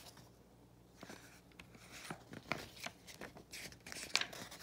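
Paper page of a picture book being handled and turned: a string of soft rustles and crinkles, the loudest crinkle near the end as the page is flipped over.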